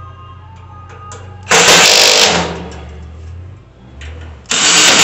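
Power drill/driver driving screws in two short bursts, about a second and a half in and again near the end, against a faint steady hum.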